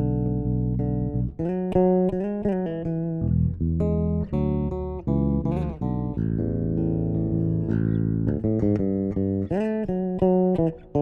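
Electric bass guitar played solo-style in a Northeastern Brazilian piece: plucked melody notes and chords with short slides between notes.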